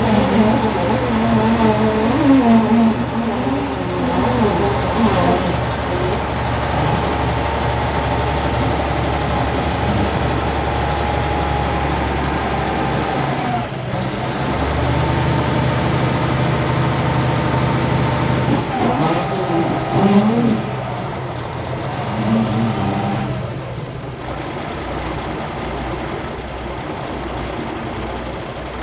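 Kenworth T880 truck's heavy diesel engine running under load while it picks up a loaded 25-ton dirt box, with wavering pitched whines and creaks early on. The engine note shifts about halfway through and again several times near the end.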